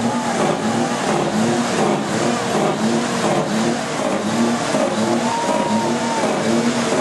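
Diesel engines of heavy semi-trucks rolling slowly past, their engine note swelling and fading over and over.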